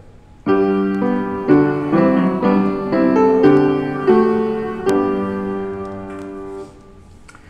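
Piano playing a short passage of held chords, changing about every half second, then dying away about six and a half seconds in.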